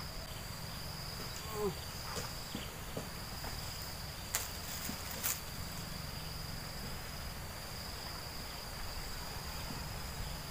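Insects chirring at one steady high pitch, with two sharp clicks about four and five seconds in.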